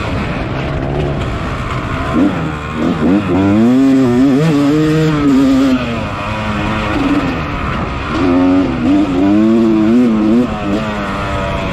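A Yamaha 250cc dirt bike engine revving hard under race riding. Its pitch climbs and drops again and again as the throttle is worked and the gears change.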